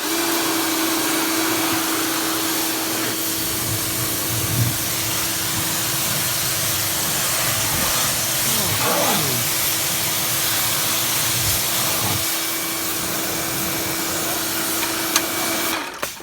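Small electric pressure washer running with the spray on: a steady motor hum over a loud rush of water spray. It starts abruptly and drops out briefly near the end.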